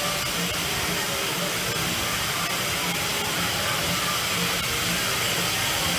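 Dumbo the Flying Elephant ride circling, heard as a steady hiss.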